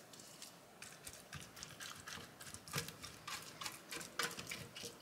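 Faint, irregular soft taps and clicks of a silicone pastry brush dabbing oil-and-spice seasoning onto sliced potatoes in a roasting pan, a little busier in the second half.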